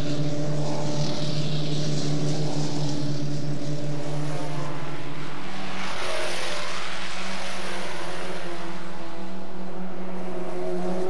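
Formula Ford 1600 race cars' four-cylinder engines running at racing speed as the cars lap the circuit, a steady high engine note. About six seconds in a car passes close, and after that the engine note sits a little higher.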